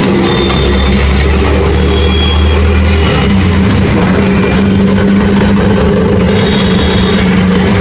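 Auto-rickshaw's small engine running as it drives through city traffic: a steady low drone whose note shifts about three seconds in, with road and traffic noise around it.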